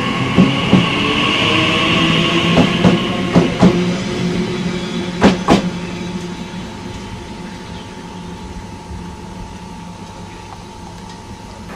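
A TfL Rail Class 345 electric train pulling away from the platform: a high whine in the first few seconds and a string of wheel clicks over rail joints, the last pair about five seconds in. The running sound then fades steadily as the train draws off.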